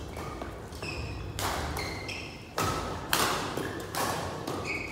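Badminton play in a sports hall: a couple of sharp racket hits on the shuttlecock near the middle, with short, high squeaks of court shoes on the floor.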